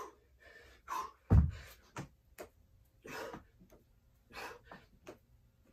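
A man breathing hard, gasping in short bursts, winded near the end of a 100-rep set of dumbbell burpees. About a second and a half in there is a heavy thud as he drops with the 25-lb hex dumbbells into the burpee.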